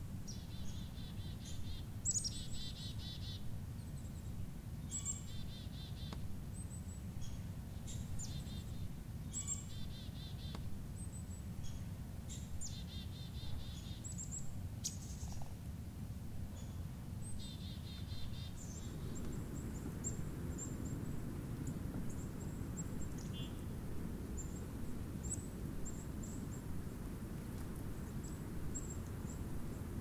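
Black-capped chickadees giving chick-a-dee calls: several high thin notes, each followed by a run of rapid dee notes, about six times in the first eighteen seconds. Thin high chips continue to the end over a steady low background rumble.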